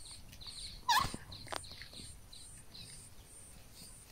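A chorus of small outdoor animals: a high trill pulsing about twice a second and repeated short falling chirps. About a second in there is a sharp knock, and a fainter click follows half a second later.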